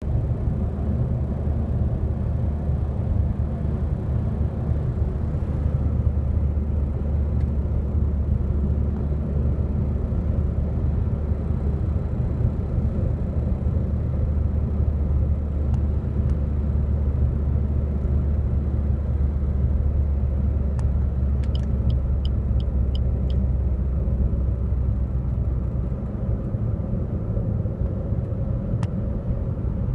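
Cabin noise of a 2017 Suzuki Vitara S driving at around 80–90 km/h, the speed range in which the owner reports a strange, irritating noise. There is a steady low road-and-engine rumble, with a row of about seven faint high ticks a little past the middle.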